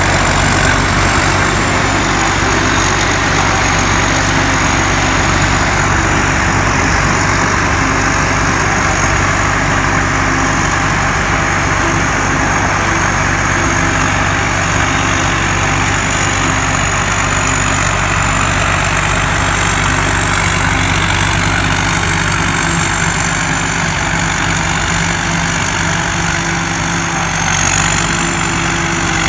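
Rice combine harvester of the Amnuay Karnchang build running steadily: a low, even engine hum under a loud machine noise and a high, slightly wavering whine, the blower that is called very loud.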